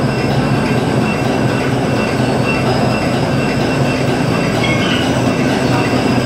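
SESPL 500 tissue napkin making machine running steadily: a dense, unbroken mechanical clatter with steady high whines over it.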